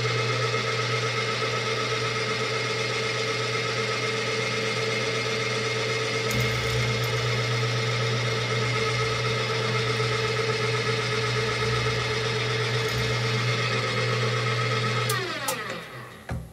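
Milling machine spindle motor running steadily while an end mill cuts into an aluminium heat-sink block. About 15 seconds in the motor is switched off and winds down with a falling pitch, followed by a short knock.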